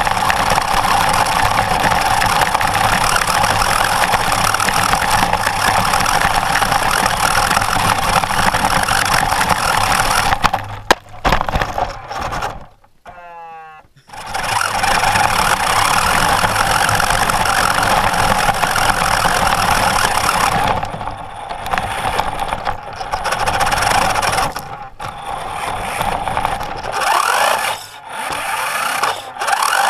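Plastic toy remote-control car driving over dirt, its motor and gears whirring steadily with the body rattling, heard from a camera mounted on the car. Just after ten seconds in there is a hard bang and the sound nearly drops out for a couple of seconds; then it drives on, and near the end it stops and starts several times, the whir rising and falling.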